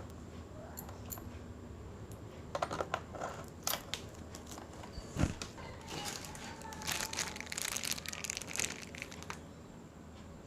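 Handling noises as a USB pen drive is plugged into a home theatre unit: scattered light clicks, one louder knock about five seconds in, then a stretch of plastic crinkling.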